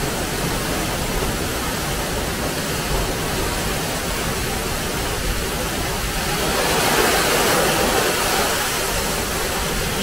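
Waterfall plunging into a pool: a steady, loud rushing of falling water.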